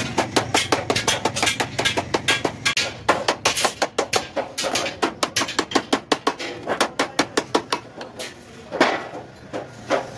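Small wooden-headed hammer tapping rapidly on the edge of a shaped aluminium sheet, about five quick taps a second, thinning to a few scattered taps near the end.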